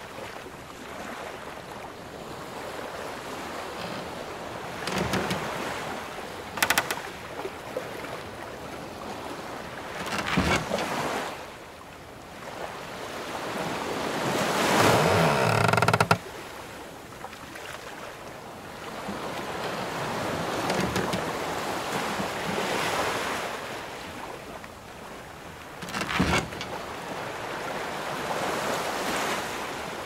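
Ocean waves washing in slow surges while the timbers of a wooden sailing ship creak, with a few sharp knocks. About halfway through, one surge builds for several seconds and then cuts off suddenly.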